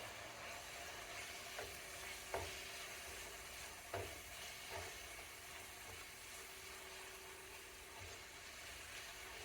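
Curry powder frying in a pan, a faint steady sizzle, with a few light knocks of a utensil against the pan as it is stirred.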